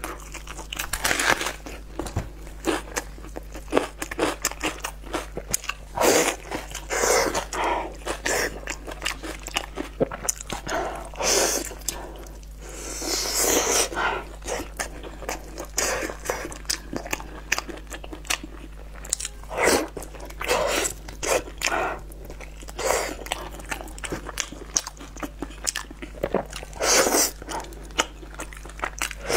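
Close-miked crunching bites and chewing of raw red onion and braised meat, short crunches coming irregularly, one after another, with a longer crunching stretch a little before halfway.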